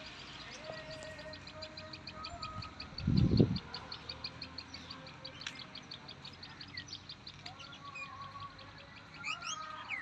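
A bird calling outdoors in a rapid, even run of short high chirps, about five a second, with other birds chirping now and then. About three seconds in, a brief low thump, the loudest sound, cuts across it.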